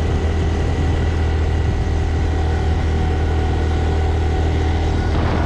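Stock 2025 Honda Grom's single-cylinder engine running at steady revs through its stock exhaust, with a brief hiss just after five seconds in.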